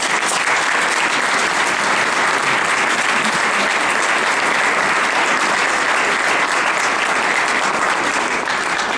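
Audience clapping steadily, a room full of hands applauding at the end of a talk.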